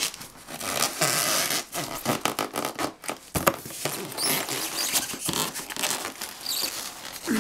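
A styrofoam packing insert scraping and rubbing against the walls of a cardboard box as hands work it loose, in irregular scratchy rustles, with one sharp knock about three and a half seconds in.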